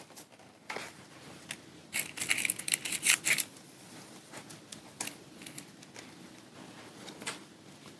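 Cross-stitch kit packaging being handled: soft rustling and light clicks of plastic and card, busiest a couple of seconds in, then fainter.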